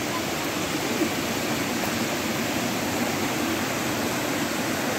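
Steady rush of a rocky stream and small waterfall, water tumbling over stones.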